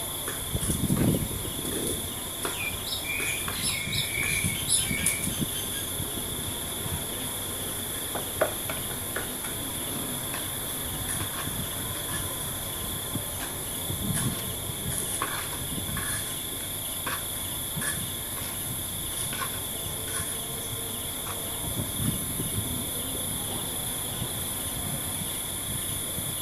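Steady high-pitched drone of insects chirring, with scattered light clicks, knocks and scraping from hand-mixing sand and cement.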